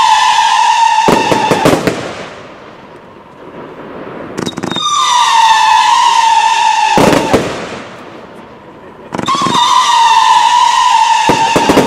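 Kingsmen Evolution fireworks compound firing volleys of whistling tails. Each volley is a loud whistle lasting a couple of seconds, its pitch falling slowly, and it ends in a quick rattle of pops and crackles. One volley ends about a second in, a second whistles from about four and a half seconds, and a third starts near the end.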